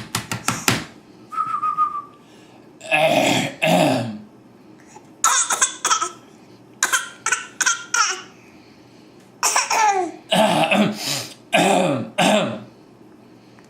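A young child coughing on purpose in short clusters, copying someone's cough, mixed with laughter.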